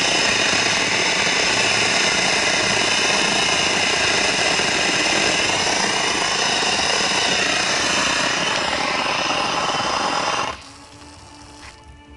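Pressure washer running steadily, its spray blasting the underside of a lawn tractor's mower deck. It cuts off suddenly about ten seconds in.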